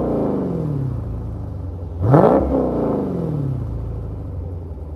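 Dodge Scat Pack's 392 Hemi V8 being blipped: the revs fall away from one throttle blip, a second quick rev comes about two seconds in and drops back, then the engine settles to a steady deep rumble.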